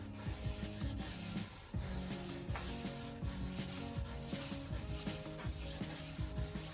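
Medium-grit Sand-flex rubber abrasive block rubbed by hand back and forth over a cast iron tabletop in continuous scrubbing strokes, cleaning off a light brown glaze of early rust.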